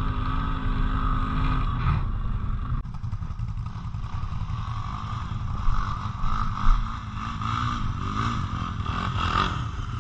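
Quad bike (ATV) engine running, its pitch steady for about two seconds and then rising and falling as the throttle is worked. A couple of louder bumps come past the middle.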